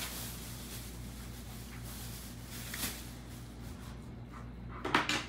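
Thin clear plastic bag crinkling now and then as it is handled, with a brief louder burst of noise near the end.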